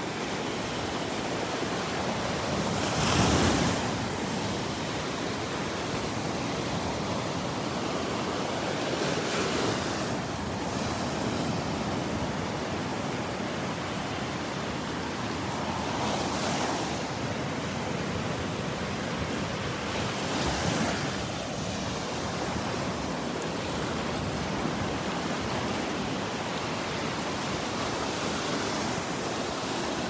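Waves breaking on the beach and under the pier: a steady wash of surf with a louder break every five to seven seconds.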